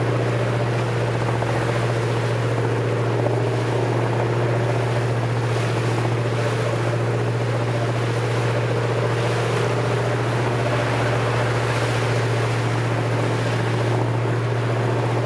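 Motorboat engine running steadily, a constant low drone under a broad rush of wind and water.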